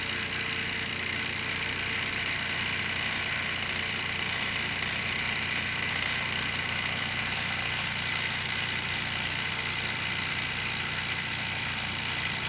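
Water pump of a Techno-Gaz Andromeda tabletop autoclave running with a steady hum and hiss. It is sucking water from the reservoir tank into the autoclave at the start of a sterilisation cycle.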